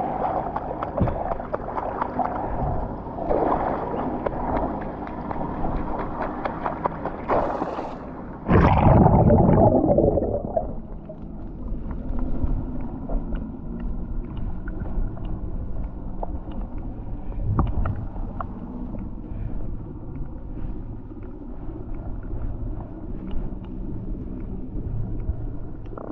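Water splashing and sloshing at the surface, then a loud plunge about eight seconds in as the diver goes under. After that comes the muffled sound of being underwater, with scattered faint clicks.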